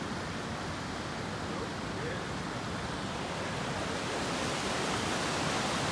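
Waterfall rushing steadily, growing a little louder and brighter about four seconds in.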